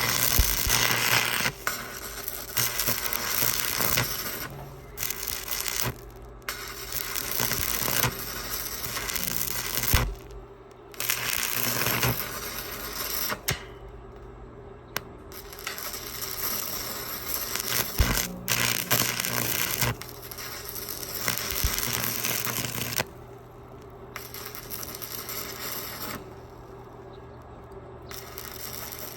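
Arc welding on steel purlins: bursts of hissing crackle from the arc that start and stop every second or few, over a steady low hum.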